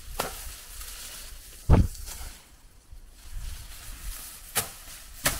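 Handling noise from the hand-held camera over an open well: a few sharp clicks and one heavy, low thump about two seconds in, over a faint outdoor hiss.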